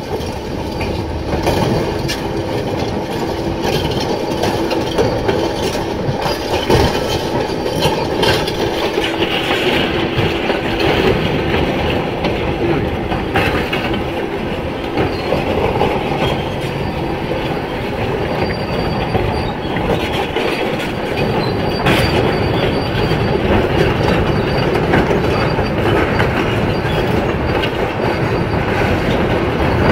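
Large Kobelco SK500LC crawler excavators running, their steel tracks clanking and squealing over a steady engine hum.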